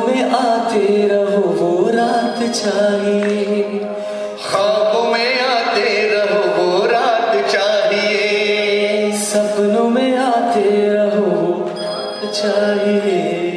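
Devotional song: a voice sings a wavering melody over a steady, held instrumental accompaniment.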